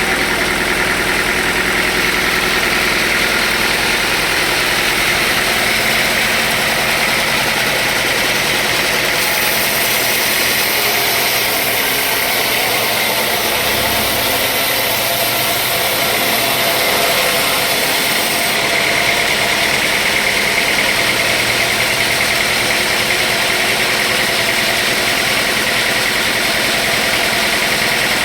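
Sawmill machinery running steadily: a constant mechanical drone with hiss. A brighter, higher hiss joins from about a third of the way in and stops about two-thirds through.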